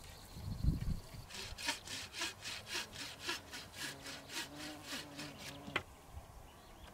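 A hand saw cutting through a long wooden pole in quick, even strokes, about four a second. Before it there is a low thump, and it stops with a sharp click near the end.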